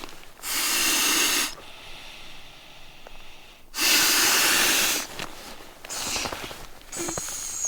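A person blowing breath into the valve of a small inflatable camping pillow: two long, strong puffs of about a second each, then two shorter, weaker ones near the end as the pillow fills.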